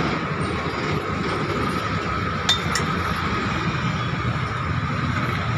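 Two quick metallic clinks about two and a half seconds in, serving utensils against a large aluminium cooking pot, over the steady rumble of road traffic.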